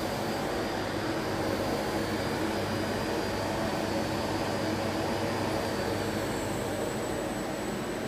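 Stainless-steel coating pan running: a steady mechanical hum with rushing air from its drum motor and blower. A faint high whine fades out about six seconds in, and another, higher one comes in.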